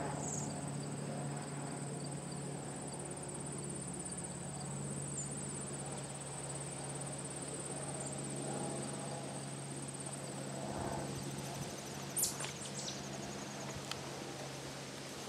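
An insect trilling steadily at a high pitch, fading out about ten seconds in, over a low steady hum. A short, sharp sound comes about twelve seconds in.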